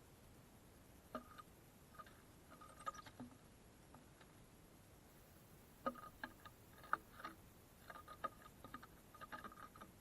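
Small birds pecking and tapping at a feeder: faint, irregular light ticks in short clusters.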